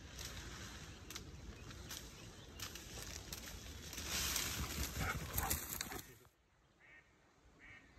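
Wind buffeting the microphone with rustling outdoor noise, louder toward the middle, cutting off suddenly about six seconds in. Near the end a duck starts quacking, short quacks repeated about once a second.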